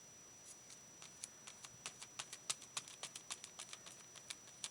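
Tissue paper crinkling and crackling as it is handled and folded over a journal page, in a run of faint, irregular little crackles that come thicker from about a second in.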